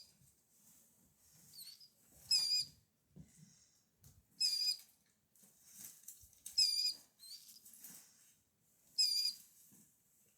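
Baby killdeer chicks calling: four loud, high, trilled peeps about two seconds apart, each about half a second long, with a few fainter peeps between.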